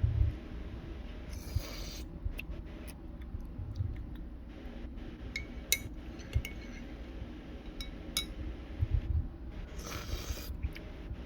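Two short slurping sips of tea, about a second and a half in and near the end, with light clinks and taps of cups being handled. A steady low air-conditioner hum runs underneath.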